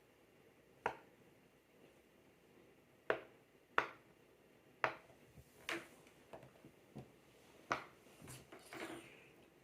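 Silicone Pop It fidget board bubbles being pushed in one after another: about eight sharp pops at uneven intervals.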